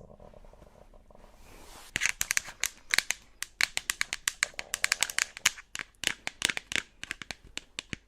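Crinkling and crackling handling noise: a dense run of sharp crackles that starts about two seconds in and goes on until just before the end.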